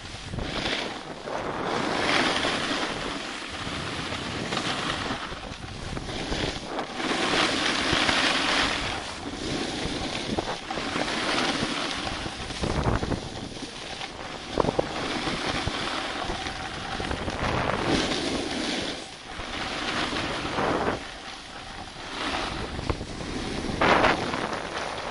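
Wind rushing over a moving camera's microphone together with the hiss and scrape of edges sliding over packed snow, swelling and fading in surges every second or two, with a couple of sharp clicks near the middle and near the end.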